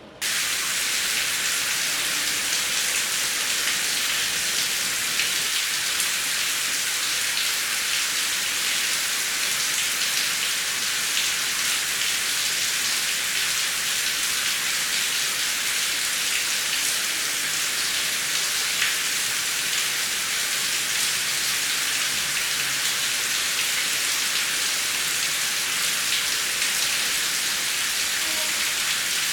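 Heavy rain falling, a steady dense hiss with fine pattering of drops. It cuts in abruptly just after the start.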